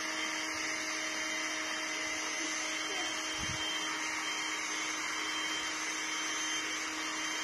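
Small electric air pump running steadily with a constant whine, blowing air into the floor chamber of an inflatable pool.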